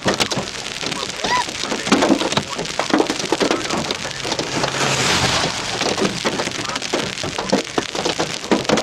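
Hailstones pelting a car, a dense, fast clatter of hard impacts on the body and glass, heaviest about halfway through.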